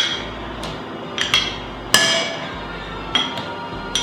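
A spoon clinking against a bowl about four times while scooping out crème fraîche, each clink ringing briefly; the loudest comes about two seconds in.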